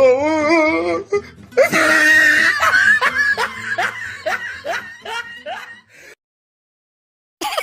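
Comedy sound-effect laughter: a wavering, wailing voice for about a second, then a string of repeated laughs that fades away about six seconds in. After a short silence a turkey gobble begins right at the end.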